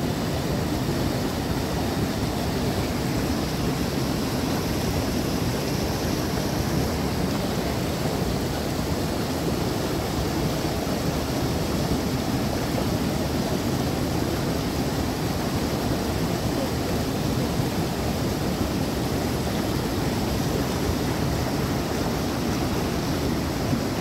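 Forest river rushing: a steady, even wash of running water.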